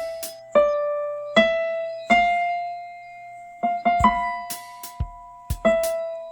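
Background piano music: slow single notes and chords, each left to ring and fade, with a long held note in the middle.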